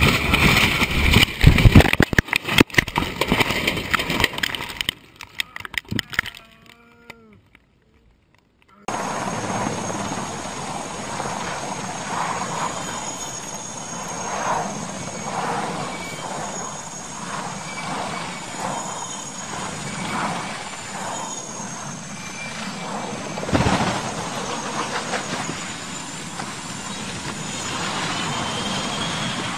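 A light propeller plane crashing, heard from inside the cabin: loud rattling and banging for about five seconds, then it goes quiet. After a cut, a helicopter's engine and rotor run steadily with a high wavering turbine whine, and there is one loud thump.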